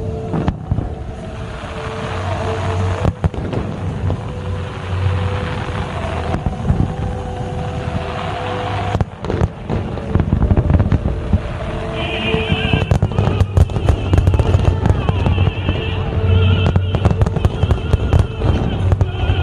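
Fireworks display: a continuous low rumble of shells bursting, turning into dense rapid crackling from about ten seconds in, with music playing alongside.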